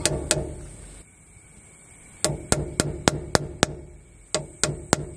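Hammer tapping a drift held against the old pinion seal of a Toyota Landcruiser differential to drive the seal out: sharp metallic taps with a brief ring after each. Two taps at the start, a pause of about two seconds, then a run of six at about four a second and a run of four near the end.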